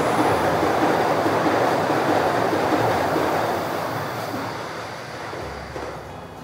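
Tokyu 5080 series electric commuter train running past close by: a loud, steady rush of wheel and running noise that slowly fades over the last few seconds.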